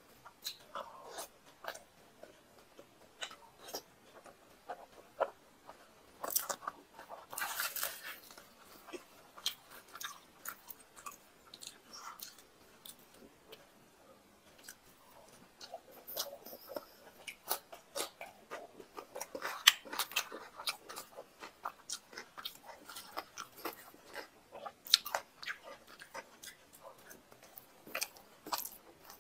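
Close-miked chewing and mouth sounds of a person eating mutton curry with luchi by hand, with many short sharp clicks throughout and busier, louder stretches about a quarter of the way in and again around two-thirds of the way through.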